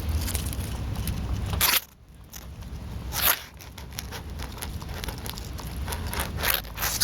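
Irregular crackling and scraping rustles over a low steady rumble. The rumble drops out suddenly just before two seconds in, and a loud crackle comes near the middle.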